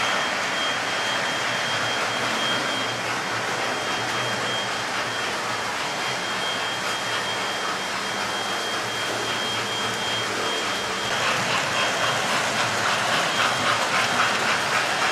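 Several electric model trains running round a layout: a steady whirr of motors and wheels on the track, with a thin high whine held throughout. From about eleven seconds a locomotive passes close by and gets louder, its wheels clicking rapidly over the rail joints.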